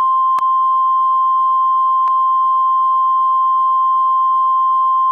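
NOAA Weather Radio 1050 Hz warning alert tone: one loud, steady single-pitch beep with a brief dropout about half a second in, sounding ahead of an emergency alert, here a tornado warning.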